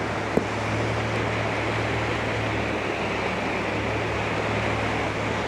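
Motorboat underway: the engine runs at a steady low hum under a constant rush of wind and water. A single short click comes about half a second in.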